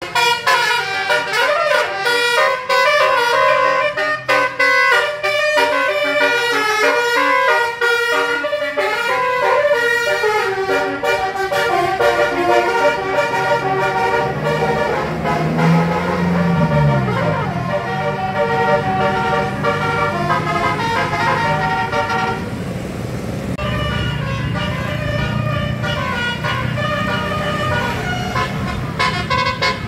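Basuri 'telolet' multi-tone musical horn on a bus, playing fast runs of stepped notes over and over. Beneath it an engine runs, with a low note that swells and falls about halfway through.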